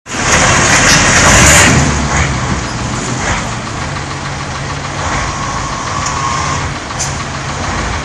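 Motor vehicle engine running with dense road noise, loudest over the first two seconds and then steadier.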